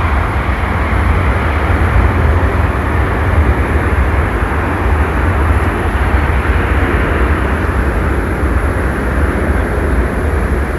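Steady rumbling roar of a four-engine Boeing 747 jet airliner (Air Force One) rolling out on the runway after touchdown.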